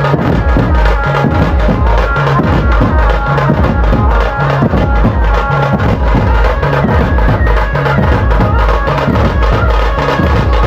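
Loud music with a heavy, steady drum beat.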